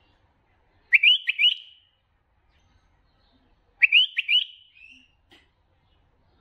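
Bulbul singing two short phrases about three seconds apart. Each phrase is a quick run of three rising whistled notes, and the second ends in a softer trailing note.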